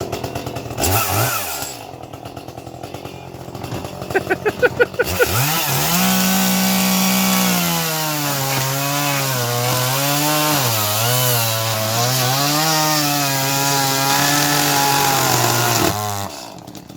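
Chainsaw engine revving in short pulses, then held at high revs under load, its pitch sagging and recovering, before it cuts out suddenly near the end: the saw has stalled.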